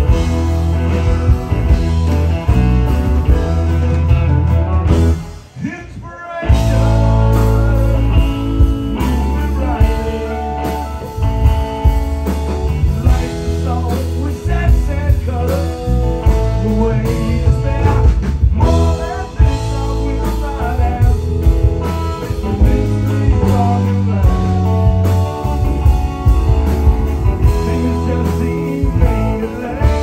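Live amplified rock band playing: electric guitar, electric bass and drum kit, with a man singing. The band drops out sharply for about a second near the start, then comes back in at full level.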